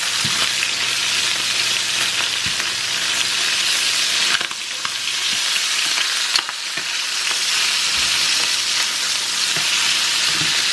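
Chicken thighs sizzling as they brown in oil in a large frying skillet, a steady hiss, with a few sharp clicks of a utensil against the pan as the pieces are turned.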